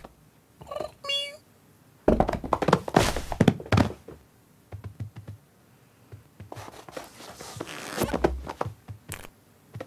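Cartoon cat sound effects: a short little cat call about a second in, then a quick run of thumps and scuffles as the cat bounds up onto the sofa, followed by a longer scrabbling rustle and a few light taps.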